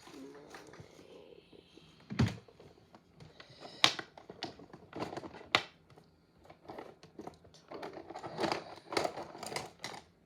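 Makeup items being handled at close range: irregular clicks, taps and light rustling, with a dull thump about two seconds in and a busier flurry of clicking near the end.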